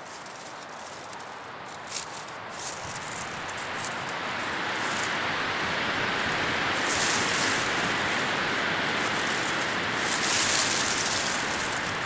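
Leaves rustling in the wind: a steady, noise-like hiss that swells louder from about four seconds in and again near ten seconds, with a few brief crisp crackles of leaves.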